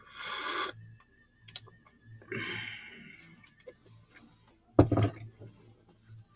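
A short slurp of a drink through a straw from a mug, a breathy exhale a couple of seconds later, then a loud knock about five seconds in.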